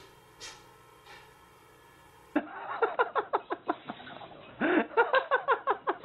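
A small dog sneezing over and over in quick succession, a rapid string of short snorting sneezes starting about two seconds in.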